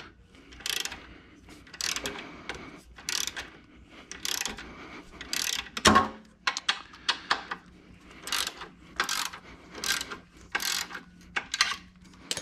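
Socket ratchet wrench clicking in short repeated strokes, about one every two-thirds of a second, as a bolt on a motorcycle belt tensioner bracket is snugged up. One louder knock about six seconds in.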